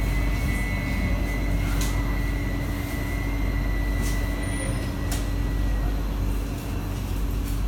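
Cabin sound of an SMRT C151B metro train (Kawasaki & CRRC Sifang): a steady low rumble with a constant hum and a thin high whine that fades out about six seconds in, with a few faint clicks.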